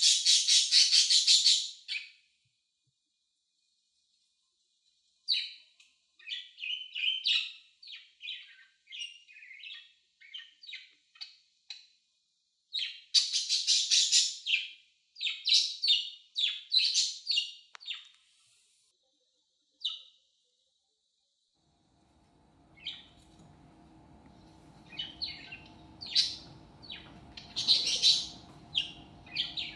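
Pet budgerigars chirping and warbling in quick bursts of high chirps and rapid trills, broken by short silences. A steady low hum comes in about two thirds of the way through, under the continuing chirps.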